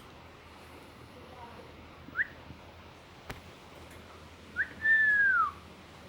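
Lovebird giving a strange, whistle-like call: a short rising whistle about two seconds in, then a short rising note and a longer clear whistle that falls in pitch near the end. A faint click sounds in between.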